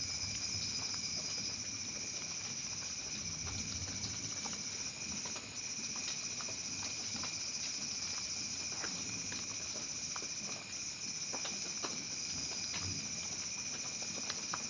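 Steady rain: a constant hiss with many scattered, sharp drop impacts pattering throughout.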